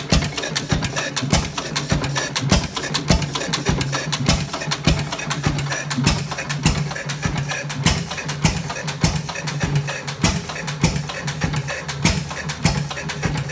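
15 hp Fairbanks Morse throttle-governed single-cylinder engine running at a steady beat, firing every cycle rather than hitting and missing, about two to three exhaust bangs a second, with a steady low hum underneath.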